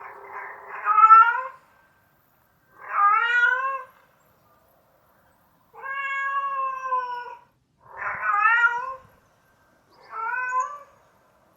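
Domestic cat meowing five times in a row, each meow about a second long and rising then falling in pitch. The middle meow is the longest and steadiest.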